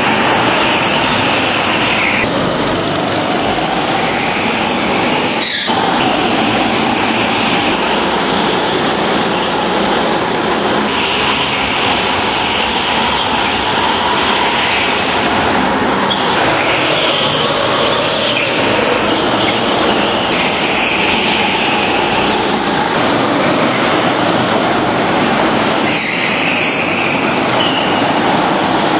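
Several racing go-karts' engines running flat out together, a continuous droning whine whose higher notes swell and fade every few seconds as karts pass.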